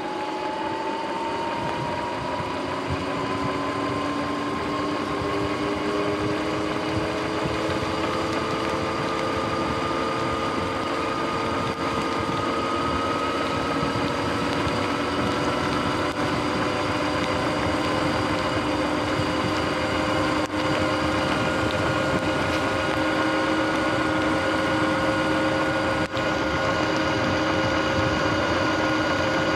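Sur-Ron X electric dirt bike's motor whining as it rides. The whine rises in pitch as the bike gathers speed over the first fifteen seconds or so, then holds steady at cruising speed, over a steady hiss of tyres on wet pavement.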